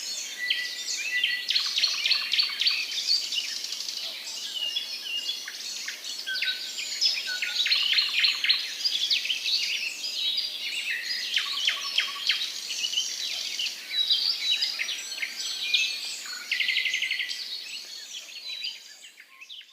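Several songbirds singing and calling at once, a dense chorus of high chirps and short trills. A fast, even trill stands out near the end, then the sound fades out.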